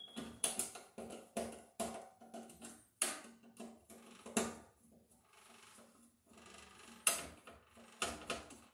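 14-2 Romex cable being worked by hand through a connector into a metal breaker panel: irregular clicks, knocks and rustling scrapes of the plastic-sheathed cable against the box. The sharpest knocks come about 3, 4.5 and 7 seconds in.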